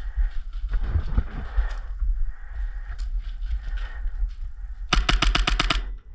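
Airsoft gun firing a rapid burst of about nine or ten shots in about a second, near the end.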